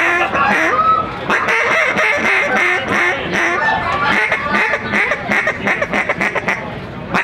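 Hand-blown duck call sounding a series of quacks, with a quick run of short notes in the middle of the sequence.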